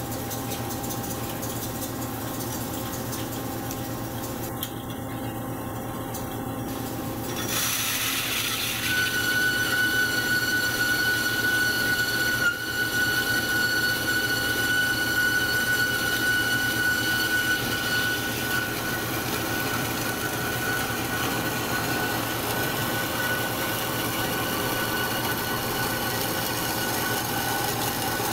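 Marvel MV460 vertical band saw running and sawing through square steel tubing. About seven or eight seconds in the sound gets louder, and a steady high whine sets in and holds as the blade works through the cut.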